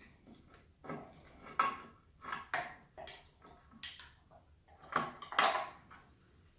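Irregular clicks, knocks and clinks of small hard parts being handled while a scooter's controller board is fitted in place of the defective one.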